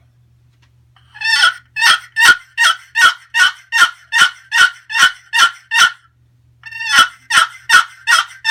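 Wooden turkey box call, a Purple Heart lid over a Black Limba box, played as a hen yelp: a run of about a dozen evenly spaced raspy yelps, roughly two and a half a second, then a pause of under a second and a second run. The yelps have a low-end rasp.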